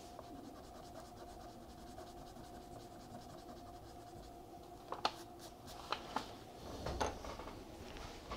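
Pencil scratching on drawing paper: a quiet stretch, then a run of short, quick strokes in the second half. A faint steady hum lies underneath.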